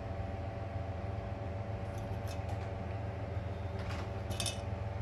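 Steady motor hum, as of a fan or appliance running, with a few light clinks about two seconds in and again near the end.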